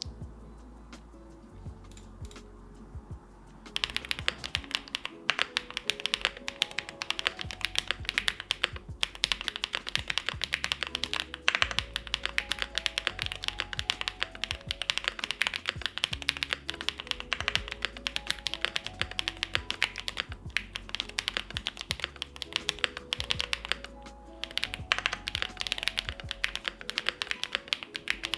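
Mechanical keyboard being typed on fast and continuously: an Owlab Jelly Epoch with a polycarbonate plate, lubed White Jade switches and GMK keycaps. The typing starts about four seconds in and breaks off briefly a few times, over background music with a bass line.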